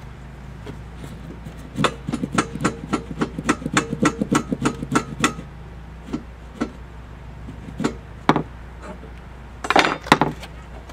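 Square steel frame tubing being tapped and knocked into position on a wooden workbench: a quick run of sharp metallic taps, about five a second for a few seconds, then a few single knocks and a short clatter near the end.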